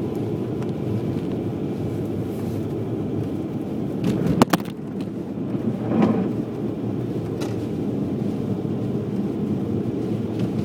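Steady in-cabin road and tyre noise of an Audi quattro driving on a snow-covered highway. A sharp knock comes about four seconds in and a duller thump about two seconds later.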